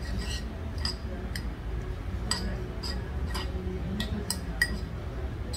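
Metal spoon clinking and scraping against a stone bowl while stirring rice, about ten sharp clinks at irregular intervals, roughly every half second, the loudest about four and a half seconds in.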